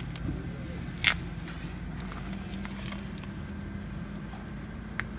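A steady low mechanical hum, with a sharp clack about a second in and a lighter click near the end.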